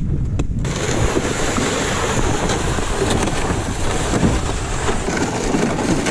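Wind buffeting the camera microphone with a low rumble. From about a second in, a steady, grainy scraping hiss joins it: a plastic ice-fishing sled being dragged on a rope across snow-covered ice.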